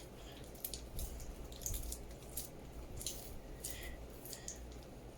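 Faint sticky squishing and small irregular crackles of soft homemade play dough being kneaded and stretched by hand, with cream worked into it.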